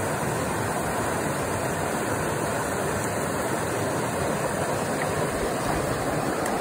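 Small rocky rapids: a steady rush of water over rocks.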